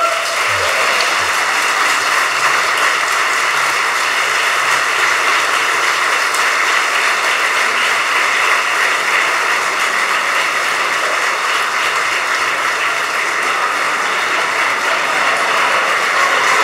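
A large crowd applauding steadily, a dense even clapping that starts at once and keeps going without a break.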